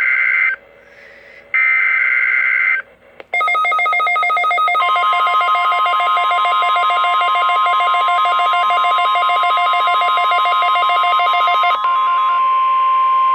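Tail of a NOAA Weather Radio alert broadcast for a Required Weekly Test: the last two screechy SAME digital header bursts, ending about 3 s in. Then Midland WR300 and WR120 weather alert radios set off rapid pulsing alarm beeps, and about 5 s in the steady 1050 Hz weather radio warning tone starts. The beeping stops about 12 s in, and the steady tone carries on alone.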